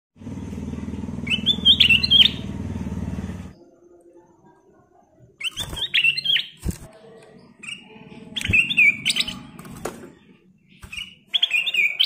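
Caged ruby-throated bulbul (kutilang emas) singing short whistled phrases in four bursts, with a few sharp knocks between them. A low steady hum underlies the first three and a half seconds and cuts off suddenly.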